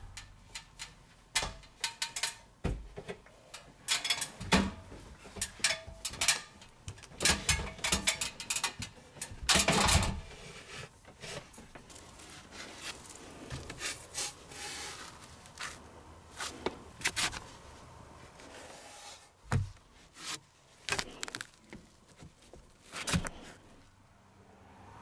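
Scattered knocks, clicks and scraping as a person climbs a ladder up through an attic hatch and shifts about on the wooden attic boards. The knocks come thick and fast for the first ten seconds or so, then thin out to a few separate thumps.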